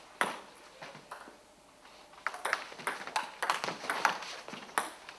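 Table tennis rally: the celluloid ball clicking off bats and the table, one knock about a quarter second in, then a quick run of hits and bounces from about two seconds in until near the end.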